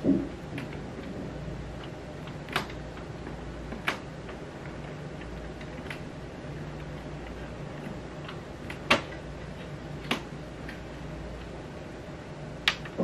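Scattered sharp clicks and knocks, about six, from cords and plastic parts being handled at the back of an Epson L1800 printer, over a steady low hum.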